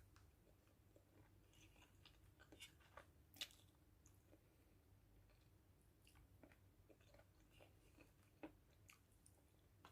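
Faint chewing of adobo chicken feet, with scattered soft clicks and crunches of the mouth on skin and cartilage, a slightly louder click about three and a half seconds in and another near eight and a half seconds.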